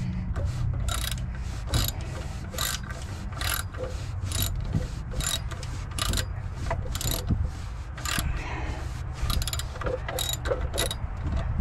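Socket ratchet wrench clicking in repeated short strokes, about three a second, as bolts are worked during a car thermostat replacement. A steady low hum runs underneath.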